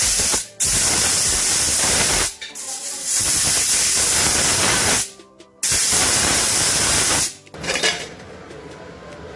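Stovetop pressure cooker whistling: steam jets out hard under the weight valve in four loud hissing bursts, each a second and a half to two seconds long with short breaks between. This is the cooker at full pressure while vegetables boil inside. A quieter steady hiss follows near the end.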